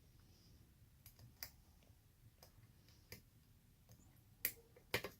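Faint, sparse clicks of a lock pick and tension wrench working the pins inside a 40 mm knockoff Guard padlock during single-pin picking. A few louder clicks come near the end, as the last pin sets and the lock comes open.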